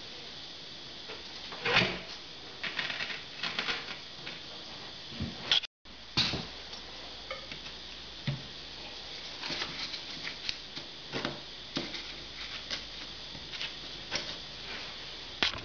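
Handling noises of a large wall tile being pressed and shifted into place on the wall: scattered taps, knocks and light scrapes at irregular intervals.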